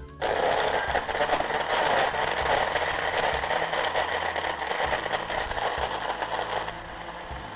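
Sujata electric mixer grinder switched on and running at full speed, blending milk and ice cubes into a banana and strawberry-crush shake; it starts suddenly and drops off near the end.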